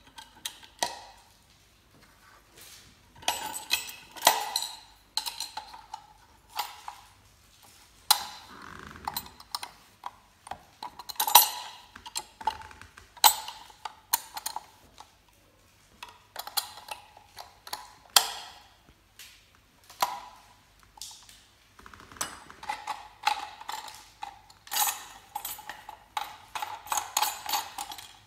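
Plastic and steel parts of a hand-cranked meat grinder clicking, knocking and clinking as it is assembled: the perforated steel grinding plate is fitted into the housing and the end cap screwed on. An irregular run of short sharp knocks, some ringing briefly.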